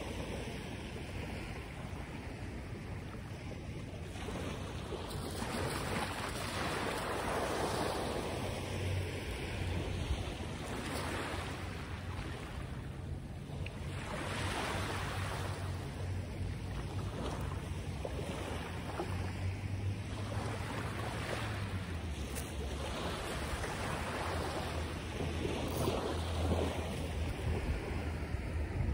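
Wind rushing over the microphone, swelling and easing in gusts every few seconds, with a low rumble underneath.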